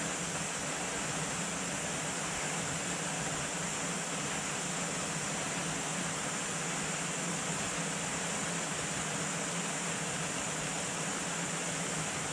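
Steady rushing noise with a low hum underneath, unchanging throughout.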